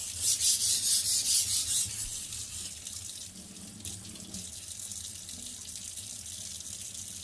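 Steel knife blade scraped in quick strokes across a coarse King 220-grit whetstone, about three strokes a second, stopping about two seconds in. Water then runs steadily from a tap.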